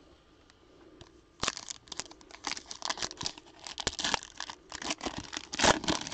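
Foil trading-card pack wrapper being torn open and crinkled in the hands. A dense run of sharp, irregular crinkles starts about a second and a half in and is loudest near the end.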